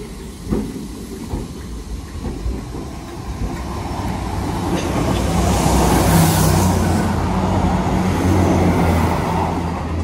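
Merseyrail Class 508 electric train pulling into the platform: a few wheel knocks over the rail joints in the first two seconds, then a steady low hum and hiss that build to their loudest about six seconds in and ease off a little.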